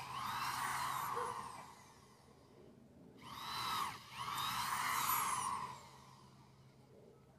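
Power drill boring into the base of the Christmas tree trunk. It runs twice, a couple of seconds each, with a rising whine as it speeds up and a falling one as it winds down.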